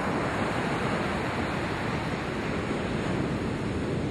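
Ocean surf washing onto a sandy beach: a steady rushing noise with no breaks.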